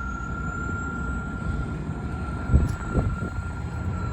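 Heavy truck engine running with a steady low rumble and a constant high whine. Two thumps come about half a second apart, a little past the middle.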